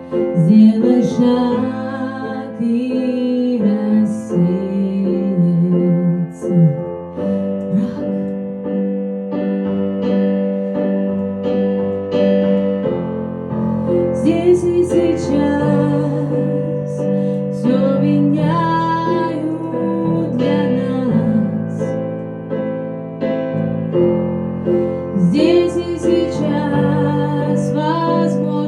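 Music: a slow song in a piano passage between sung lines, with a woman's voice gliding over the piano in places without clear words.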